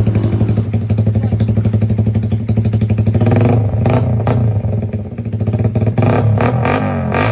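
Suzuki Raider Fi motorcycle's single-cylinder engine through an open aftermarket exhaust pipe, idling with a fast pulsing note, then blipped several times in quick succession from about halfway, the revs falling back after the last blip.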